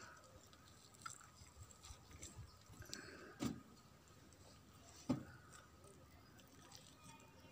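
Faint hand-handling of raw chicken: the yellow skin of a country chicken being pulled off the meat by hand, with a few soft short sounds, the clearest about three and a half and five seconds in.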